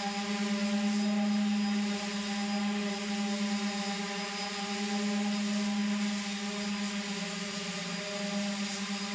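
Handheld electric sanders running steadily as they are pressed against a ceiling: a constant motor hum over the hiss of sandpaper rubbing the surface.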